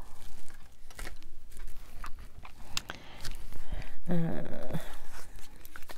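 Cut-out paper pieces being shuffled and handled, rustling with scattered light taps and clicks. About four seconds in comes a short wordless hum from the crafter.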